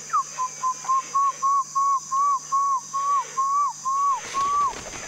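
A man whistling an animal call: a series of about a dozen clear notes at one pitch, each rising slightly and then dropping off, the notes growing a little longer toward the end.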